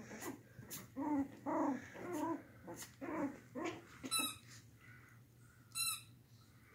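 Two 40-day-old puppies play-fighting, giving a run of short, small growls and yips. Two brief high-pitched squeals come about four seconds in and again near the end.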